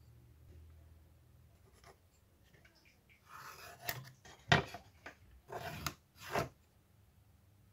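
Pencil drawing short lines on plywood along a steel rule: a few brief scratching strokes, with a couple of sharp knocks from the metal square and rule being handled on the board, the loudest a little past halfway.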